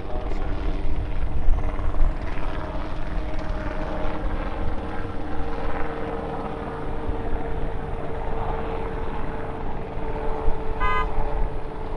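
A group of small piston helicopters, mostly Rotorway kit helicopters, flying overhead together, their engines and rotors making a steady mingled drone. A short high tone sounds once near the end.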